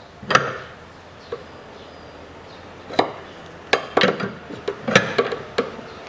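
Metal tool clinking and knocking against a steering tie rod as it is tightened into the steering rack: sharp metallic clinks, one about a third of a second in, then a cluster of several between about three and five and a half seconds.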